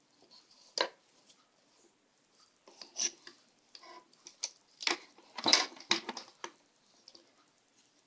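Wooden rigid heddle loom clacking as a plain down-shed pick is woven: the heddle is shifted and beaten, and the shuttle is passed. A scattered run of sharp wooden knocks and clicks, the loudest about five and a half seconds in.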